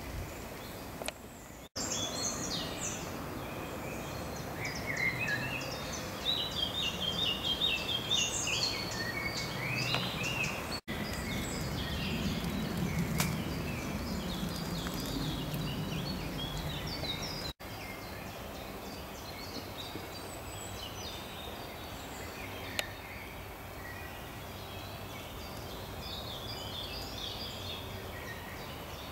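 Several woodland songbirds singing, with repeated notes and trills from more than one bird, over a steady low background rumble. The sound drops out for an instant three times.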